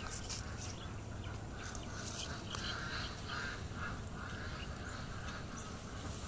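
A run of short, repeated animal calls over a steady outdoor background noise.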